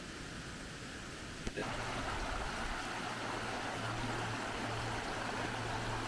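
Shallow rocky stream running over stones, an even rush of water. It comes in louder after a click about a second and a half in; before that there is only a quieter, even hiss.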